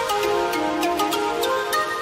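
Background music: a stepping melody over a steady beat of high ticks, about four a second.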